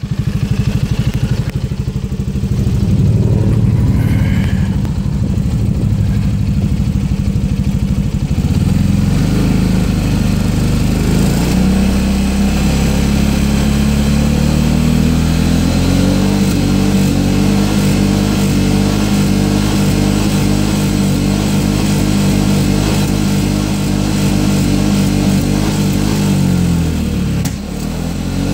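Piaggio MP3 500 scooter's single-cylinder engine running rough and uneven at idle, then revving up from about twelve seconds in and holding steady at higher revs, dipping briefly near the end. The scooter cuts out at 6000 rpm, which the owner first blamed on bad fuel.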